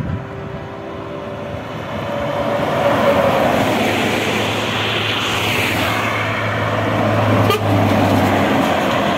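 Heavy semi-trucks driving past on a highway: tyre and engine noise swells as a truck approaches and passes, with a steady low engine drone in the middle. A single sharp click sounds late on.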